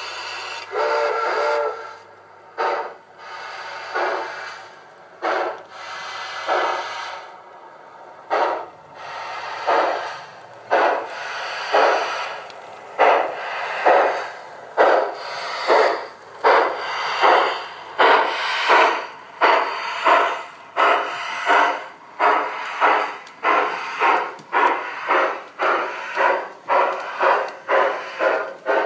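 Sound unit of an LGB G-scale Sumpter Valley 2-6-6-2 steam locomotive model giving a short whistle, then steam chuffs that start slow and quicken steadily as the train picks up speed, reaching about two a second.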